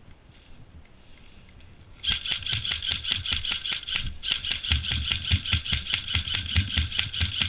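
Airsoft rifle firing on full auto: two long bursts of rapid, evenly spaced shots over the whir of its gearbox, the first starting about two seconds in and the second following a split-second break.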